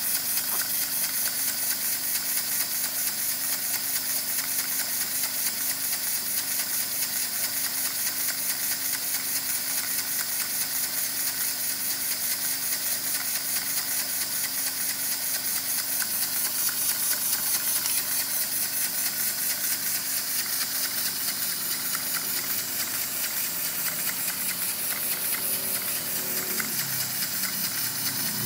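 Homemade scrap-built piston engine running on compressed air from a compressor instead of steam, hissing steadily with fast, even exhaust puffs.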